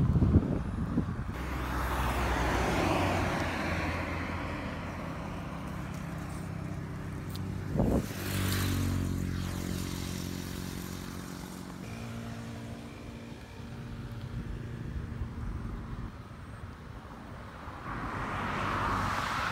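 Road traffic: a car passes about two seconds in and another approaches near the end, with a vehicle engine humming steadily in between. A brief knock sounds about eight seconds in.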